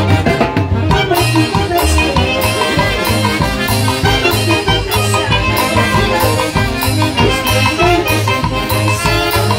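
Live Peruvian tusuy orquesta playing a huayno: saxophones and brass over a drum kit with a steady dance beat.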